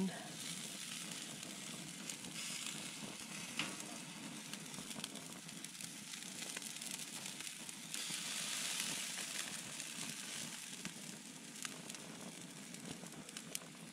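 Marinated rabbit pieces sizzling on a gas grill's grate as they are turned with metal tongs. A steady hiss with small clicks swells louder for a couple of seconds about eight seconds in.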